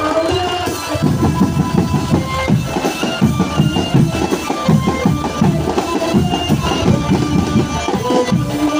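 Drum band playing: fast, steady drumming with a melody of long held notes on top.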